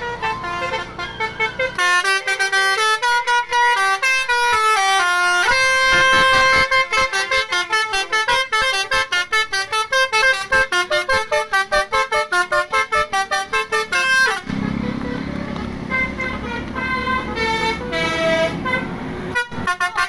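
Basuri melodic car horn played note by note from a pianica-style keypad controller, running quick tunes of loud, buzzy horn notes that step up and down in pitch. For the last five seconds or so a low rumble runs under the horn notes.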